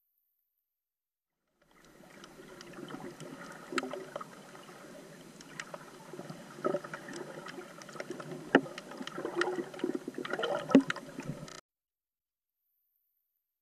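Water sloshing and gurgling around an underwater camera while snorkeling, with many scattered sharp clicks and a few louder knocks. It starts about two seconds in and cuts off suddenly near the end.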